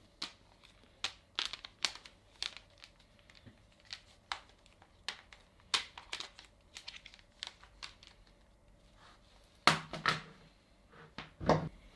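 Kettle's plug-in power base being handled: scattered light clicks and rustles, louder and closer together toward the end.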